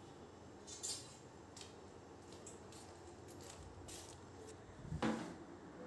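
Faint clicks and scrapes of a plastic jar and its snap-on lid being handled, with a louder knock about five seconds in as the camera is picked up.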